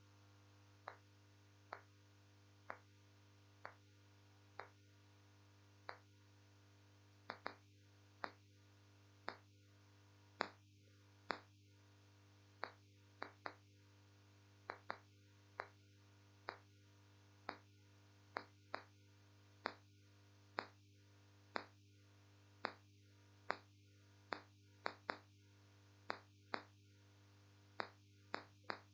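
Marker pen tapping and clicking against a whiteboard while writing: sharp, irregular clicks about once a second, some in quick pairs, over a steady low electrical hum.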